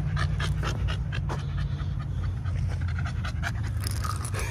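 American bully dog panting quickly, out of breath from exertion, over a steady low rumble.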